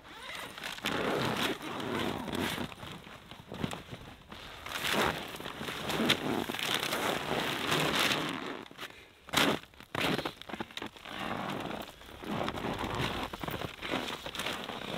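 Stiff tent fabric rustling and crumpling in irregular swells as it is spread out and handled on the snow, with a sharp knock about nine seconds in.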